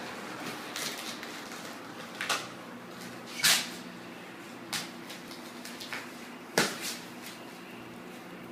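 Handling of a cardboard mattress shipping box: a few short sharp knocks and scrapes, the loudest about three and a half and six and a half seconds in, over a faint steady low hum.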